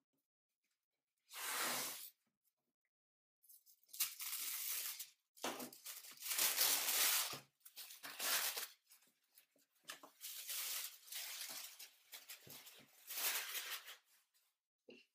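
Packing paper and masking tape being slit and torn off a wrapped box, heard as about six separate ripping and rustling stretches of a second or two each.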